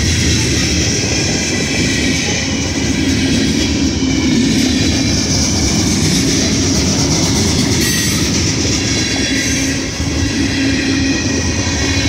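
Freight train cars rolling past at close range, a loud, steady rumble of steel wheels on the rails.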